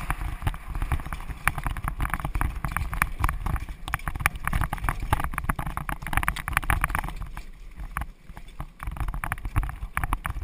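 Horse-drawn carriage rolling along at speed: wheels and fittings rattling and knocking over a low rumble, with the horse's hooves clip-clopping.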